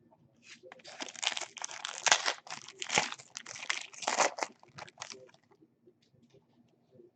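Plastic foil wrapper of a trading-card pack crinkling and tearing as it is ripped open and handled, a dense crackle that dies down after about five seconds.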